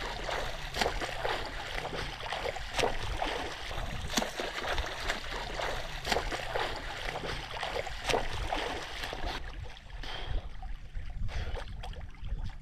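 A swimmer's front-crawl strokes splashing in open lake water, about one a second, over the lapping of small waves close by; the splashing thins out in the last few seconds.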